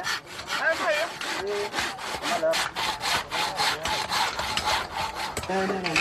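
A small hand adze chipping and scraping a wooden carving block in quick repeated strokes, about three or four a second.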